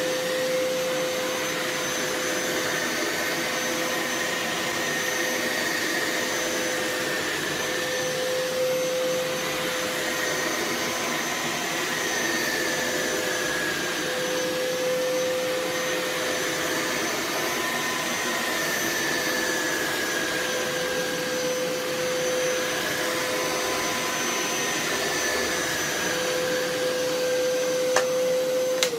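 Hoover Power Scrub Elite Pet upright carpet cleaner running steadily while being pushed over carpet: a loud, even motor whine over suction noise, with a click near the end.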